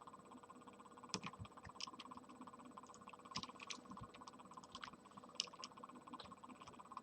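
Faint, irregular clicks of a computer mouse and keyboard over a steady low hum.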